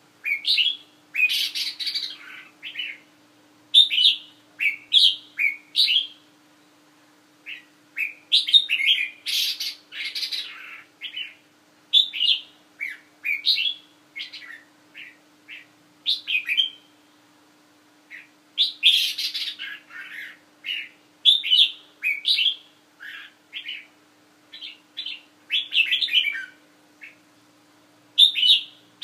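Caged red-whiskered bulbul singing: short, bright warbled phrases of a few notes each, repeated again and again with brief pauses between them.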